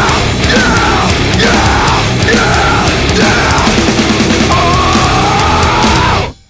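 Loud hard rock / heavy metal music that cuts off suddenly just before the end.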